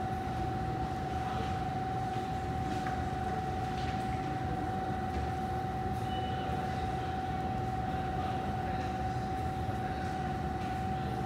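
Underground railway platform ambience: a steady low rumble with one constant high-pitched hum held throughout, unchanged in level.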